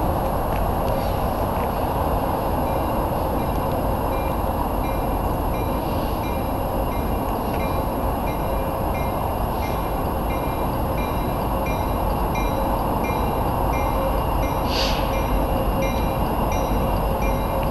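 Two EMD SD70MAC diesel locomotives, two-stroke V16 engines, rumble steadily as they approach at low speed with a train. From about two seconds in a bell rings in a steady rhythm, and there is one brief high squeal about fifteen seconds in.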